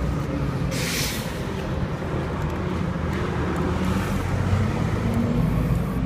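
Steady rumble of city street traffic, with short hisses of an aerosol spray paint can, the loudest about a second in.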